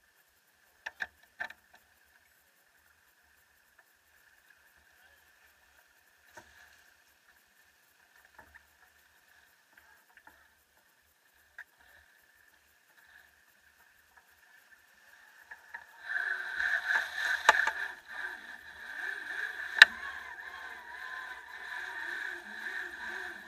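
Sailing yacht's headsail flapping loose as it luffs, with a loud rush of wind and water that starts about two-thirds of the way through and one sharp snap a few seconds later. Before that it is quiet apart from a few faint clicks.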